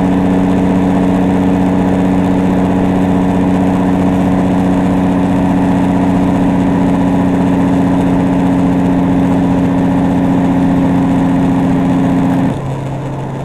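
Cummins N14 diesel of a Peterbilt 379 with its jake brake on, a loud, steady engine-brake drone. About twelve and a half seconds in the brake cuts off suddenly, leaving a quieter, lower engine drone.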